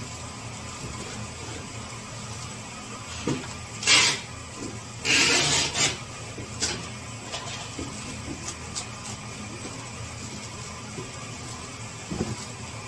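Handling noises over a steady background hum: a short scraping or rustling burst about four seconds in, a longer one of about a second just after, then a few light clicks and a single knock near the end.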